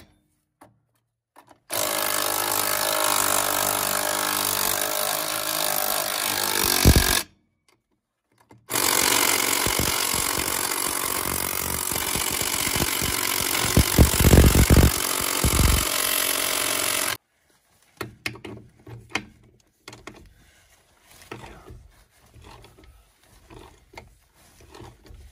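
A power tool runs in two long spells, about five and eight seconds, spinning lug nuts onto a mobile home wheel through a socket extension. Each spell stops abruptly. After it come scattered light clicks and knocks of handling.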